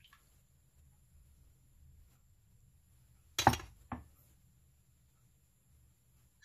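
Two short clinks of kitchenware knocking together, about half a second apart, the first louder with a brief ring.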